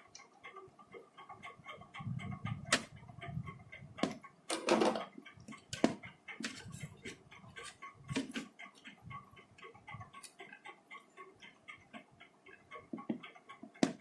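Sharp clicks and knocks from hands and tools working on a set-top box circuit board while a replacement power supply is soldered in, over a rapid faint ticking.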